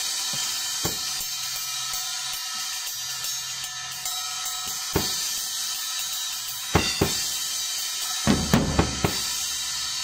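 Drum kit played with perforated low-volume cymbals: a steady, bright cymbal wash over scattered drum strokes, two close hits about seven seconds in and a quick run of drum strokes near the end.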